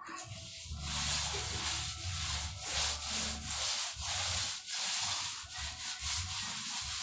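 Repeated rubbing strokes on a fresh cement plaster wall, a wet sponge being worked over the surface to smooth it. The strokes come roughly one or two a second with short breaks between them, starting just after a brief pause.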